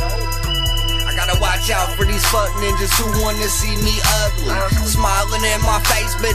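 Hip hop music: a deep bass line under a steady drum beat, with melodic lines on top.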